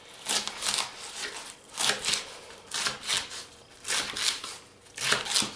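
Kitchen knife slicing through leek leaves and meeting a wooden cutting board: a series of short cuts, roughly one a second.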